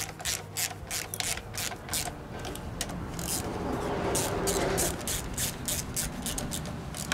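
Socket ratchet clicking in quick back-and-forth strokes, about three to four clicks a second, as the M6 bolts of a lawnmower gearbox's top cover are tightened down, with a smoother rasping stretch midway.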